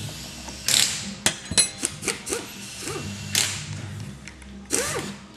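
Metal clicks and light knocks from a Reiger rally shock's top cap being unscrewed by hand and handled on the shock body, a handful of sharp ticks spread through the few seconds.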